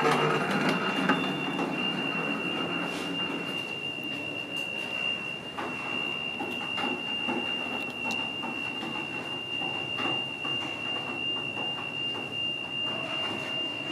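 A steady, high electronic tone holding one pitch throughout, over a low station rumble that is heavier in the first couple of seconds and then eases.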